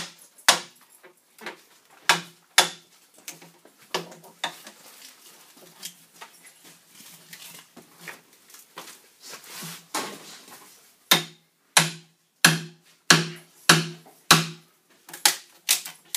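Steel axe chopping into a log being hewn square, sharp wooden blows. The blows come about one or two a second, grow softer and sparser in the middle, then return as a run of loud strikes over the last five seconds.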